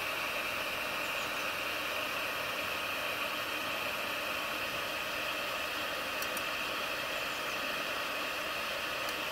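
Voxelab Aquila 3D printer's noisy cooling fan running with a steady hiss.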